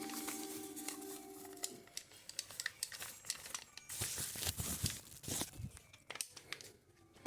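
Plastic packaging crinkling and rustling in irregular sharp bursts as the blender is unwrapped, after a music tail fades out in the first two seconds.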